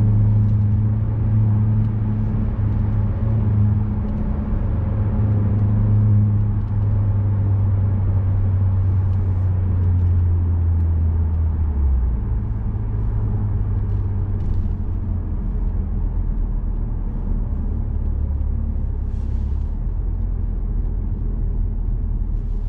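2021 Mazda3 Turbo hatchback's turbocharged 2.5-litre four-cylinder through a Corksport axle-back exhaust with resonator delete, heard inside the cabin. The engine note falls sharply right at the start as the revs drop after accelerating, then settles into a steady low drone while cruising. The drone steps lower about halfway through.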